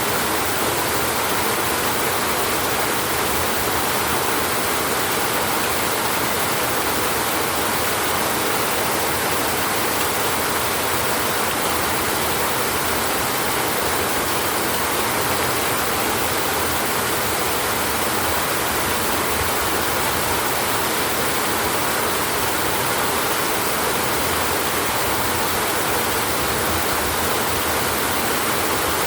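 Steady rain falling on a tin roof, an even unbroken hiss.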